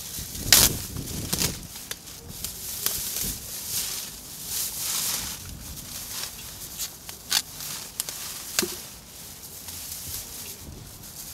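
Thin plastic bags crinkling and rustling as hands rummage through them, in irregular bursts with sharp crackles.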